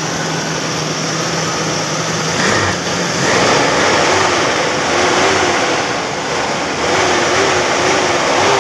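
Toyota four-cylinder gasoline engine, freshly fitted with a new cylinder head, running: it idles steadily, then the sound changes and grows louder about two and a half seconds in, as if the engine is revved. A wavering whine is heard in the second half.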